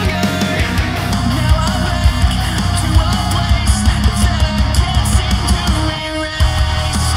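Rock song with distorted electric guitar and a steady drum beat. It is heard first as the original track, then, partway through, as played back by Skullcandy Crusher ANC 2 wireless headphones with noise cancelling on, recorded through a measurement ear rig.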